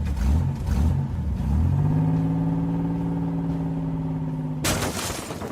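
Toy monster truck engine sound effect: a few quick revs, then a steady engine tone that is held for about three seconds. Near the end it cuts off into a short, loud burst of noise, like a crash.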